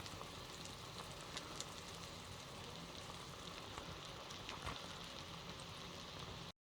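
Hamburger patties frying in a pan: a faint, steady sizzle with scattered small crackles, which cuts off suddenly near the end.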